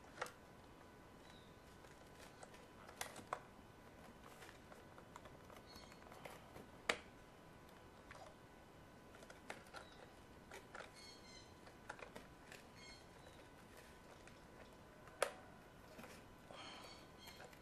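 Scattered light clicks and taps of a plastic steam-iron housing and tools being handled while the iron is taken apart, with two sharper clicks about 7 and 15 seconds in.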